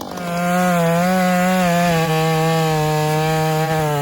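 Two-stroke chainsaw opening up to full throttle about half a second in and cutting through wood, its engine note steady with slight dips in pitch under the load of the cut.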